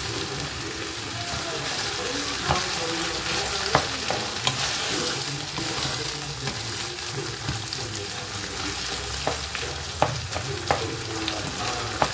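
Food sizzling steadily in oil in a pan while being stirred, with a utensil knocking against the pan several times.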